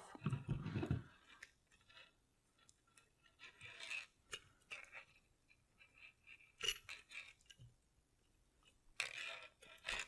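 Faint, scattered clicks, clinks and scrapes of hands handling ceiling-fan light-kit wiring while electrical tape is wrapped around a wire nut.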